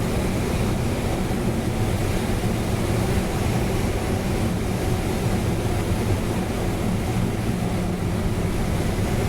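Steady rushing and rumbling noise inside a glider's cockpit during the approach to land.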